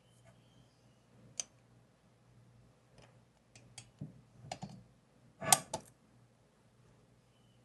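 Metal parts of a C64 ERM hand coffee grinder clicking and knocking lightly as its crank handle is fitted: a scattered series of short clicks, with the loudest knock about five and a half seconds in.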